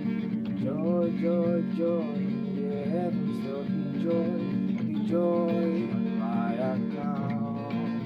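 Acoustic guitar strumming a steady worship-song accompaniment. A higher melodic line glides in pitch over it in short phrases.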